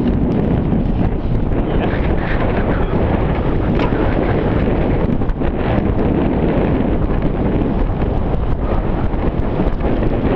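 Wind rushing over the microphone of a mountain bike rider's onboard camera, with frequent small knocks and rattles from the bike running over a dirt trail.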